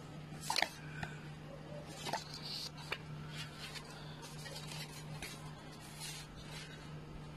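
Rustling and crackling of a folded paper user manual being handled, pulled out and unfolded, in irregular short strokes with the loudest about half a second in, over a steady low hum.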